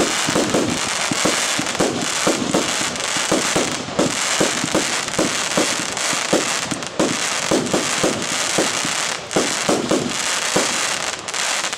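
Katan Special No.1, a 100-shot 25 mm fireworks cake, firing in rapid succession: many shots and bursts close together over a steady crackle. It stops right at the end.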